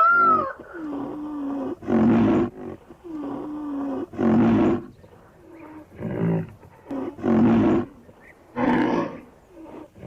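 Rhinoceros calling: a high squeal that rises and falls right at the start, then a series of loud, breathy bellows about every one and a half to two seconds, the first two each led by a lower drawn-out moan.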